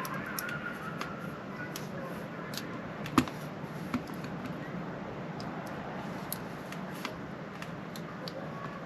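Small clicks and taps from a plastic phone-holder clip being handled and pressed closed, with one sharper knock about three seconds in, over a steady low hum.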